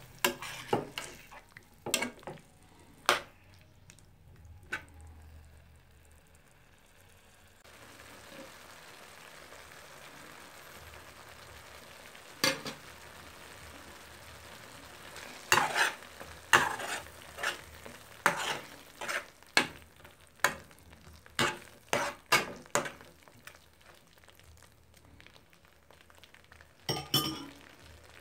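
A spoon stirring tomatoes and onions frying in a metal pot. It makes sharp scrapes and knocks against the pan in runs: several in the first few seconds, a long run in the middle and another near the end, over a low sizzle.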